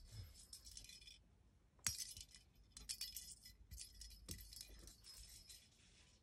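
Small bell in a plastic lattice cat-toy ball jingling and clinking as a kitten bats it, in two spells: one that stops about a second in, and a longer one from about two seconds in until near the end.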